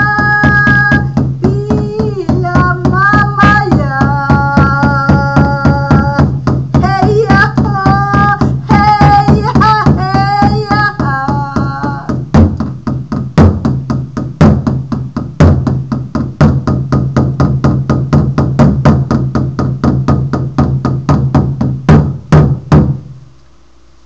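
A woman singing a slow, held chant over a steady beaten hand drum. About halfway through the singing stops and the drum goes on alone at about three beats a second, then stops shortly before the end.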